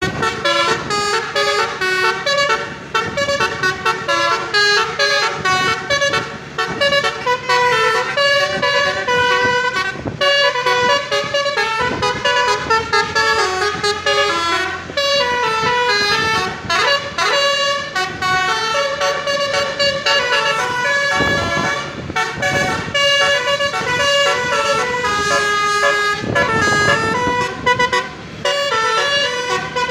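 Multi-tone Indonesian 'telolet' horn on a vehicle playing a melody, its loud tones stepping up and down from note to note without a break.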